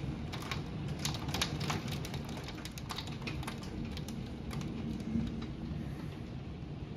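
Wind-driven rain spattering against the window glass in irregular sharp ticks, over a steady low rumble of storm wind. The ticks thin out after about five seconds.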